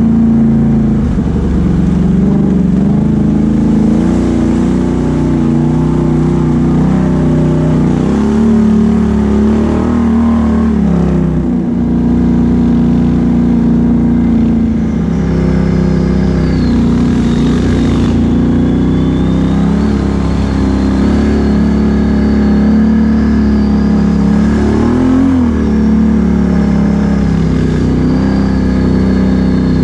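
Can-Am Outlander XMR 1000 ATV's V-twin engine, fitted with a Big Gun exhaust, running hard on a trail, its note rising and falling with the throttle. A faint high whine wavers above it in the second half.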